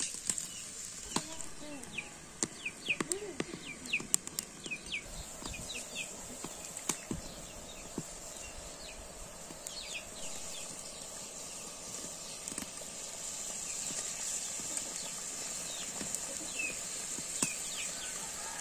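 Fish curry boiling in a karahi over a wood fire on a mud stove, with sharp crackles from the fire and the bubbling growing louder in the second half. Birds chirp in quick falling calls, most of them in the first few seconds.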